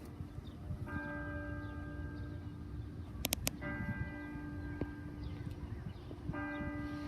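A single church bell tolling, struck three times about two and a half seconds apart, each stroke ringing on until the next, over a low steady rumble.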